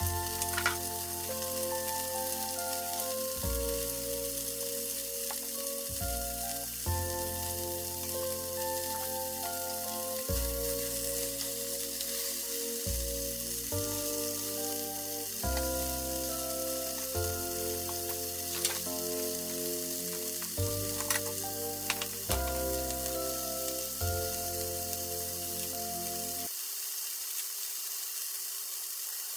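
A meat roll sizzling in an oiled frying pan, with a steady hiss. Light background music with a bass line plays over it and stops near the end. A few sharp clicks are heard in the middle.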